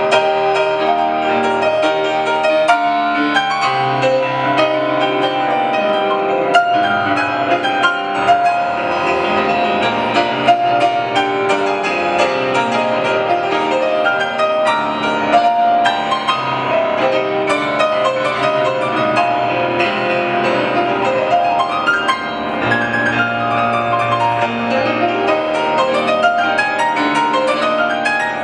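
Grand piano played solo, dense with quick notes throughout. In the second half, a fast run sweeps down the keyboard and then climbs back up.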